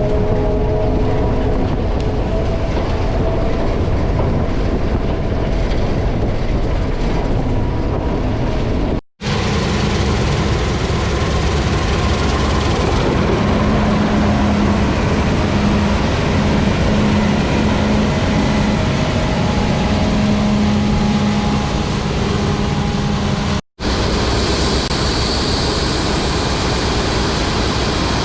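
Heavy farm machinery running steadily: a loud engine drone with road and drivetrain noise. It cuts off abruptly twice, about nine seconds in and near the end, and comes back each time.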